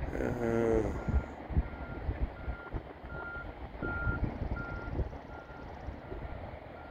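A vehicle's reversing alarm beeping steadily and distantly, about one short beep every 0.7 seconds. Wind gusts rumble on the microphone.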